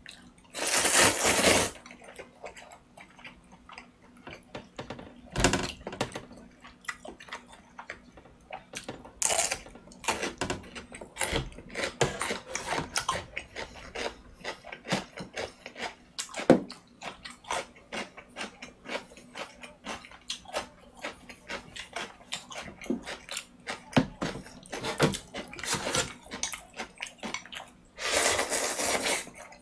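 Close-up eating sounds: noodles slurped in loud bursts, about a second in and again around nine seconds, with chewing and small clicks and smacks between. Near the end comes a longer slurp of broth drunk straight from the bowl.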